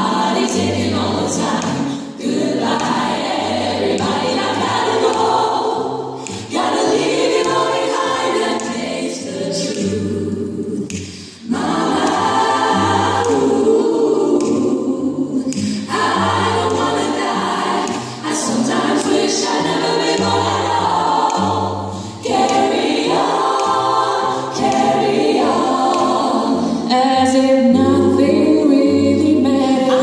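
Women's vocal ensemble singing in close harmony through microphones, over long low cello notes, with short breaks between phrases.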